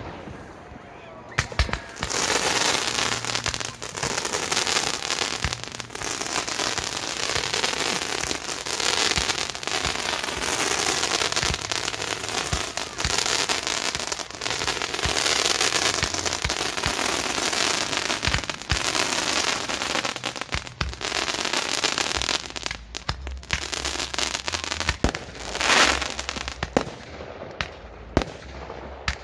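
Fireworks display with mortar-fired shells: a dense, continuous barrage of cracks and crackling that starts about a second and a half in and thins out to scattered cracks and short hissing bursts near the end.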